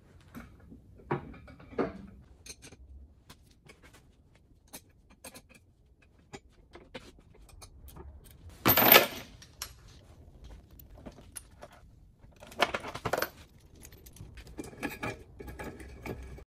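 Steel engine brace and its lifting chain clinking and clanking as the brace is set across the car's wings and the chain hooked to the engine. There are scattered metal clicks, with the loudest clatter about nine seconds in and another about thirteen seconds in.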